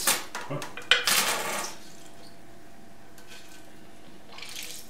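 Thin sheet-metal splash shield being handled and set against a milling machine: a few light metal clicks, then a sharp clank about a second in followed by a short rattle of the sheet, and a brief faint scrape near the end.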